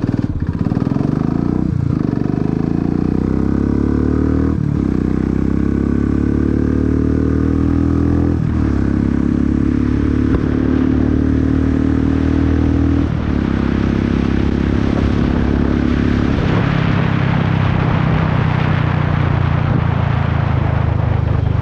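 Royal Enfield single-cylinder engine breathing through a Red Rooster performance exhaust, accelerating hard from a standstill during a 0–100 km/h run: the pitch climbs in each gear, then drops at each upshift, about five times. Wind noise builds as the speed rises.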